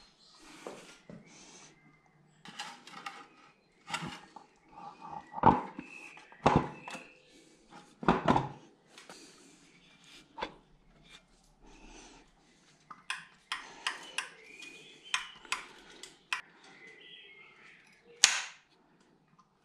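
Scattered metallic clanks, clicks and knocks from a flywheel being refitted and bolted onto an engine's crankshaft, with a few sharper knocks about five to eight seconds in and again near the end.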